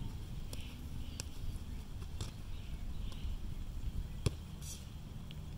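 Soccer ball being dribbled on grass: a few light touches, then a sharper, louder strike on the ball about four seconds in, over a steady low rumble.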